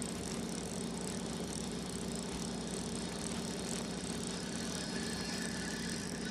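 Fishing boat's motor running steadily with a low hum, under an even hiss.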